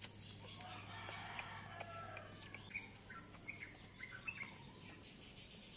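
A 12-day-old puppy suckling goat's milk from a feeding bottle: faint, scattered small clicks from its mouth on the nipple, with faint chirping in the background.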